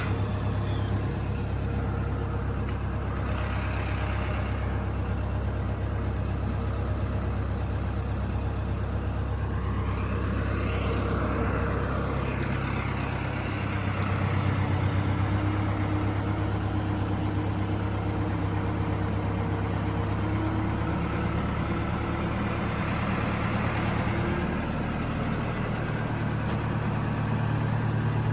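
A heavy truck's engine running steadily, its speed changing a few times: about a second in, around halfway, and again near the end.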